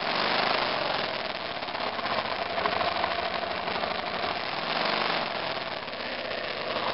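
The single-cylinder engine of a 2002 BMW F 650 GS Dakar motorcycle, running at low revs as the bike is ridden slowly through a patch of mud on the trail, under a steady hiss of noise.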